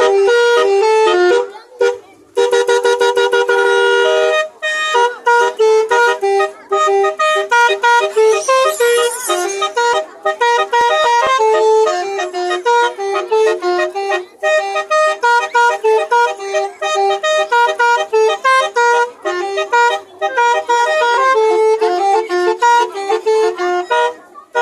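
Basuri musical 'telolet' vehicle horn playing fast melodies, note after note, with a few brief pauses.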